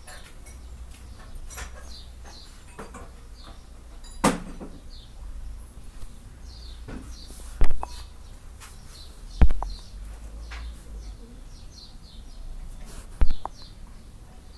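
Four sharp knocks spread irregularly over several seconds, with faint short bird chirps in the background.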